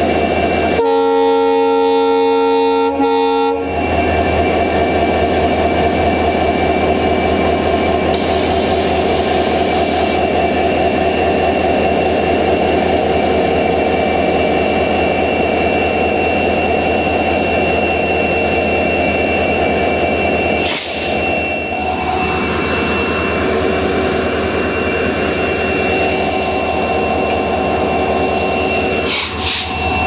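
A WDP4D diesel locomotive, with an EMD 16-cylinder two-stroke engine, sounds its horn once, a chord of several steady tones held for about three seconds. Its engine then runs loud and steady as it pulls away, with a two-second hiss about eight seconds in.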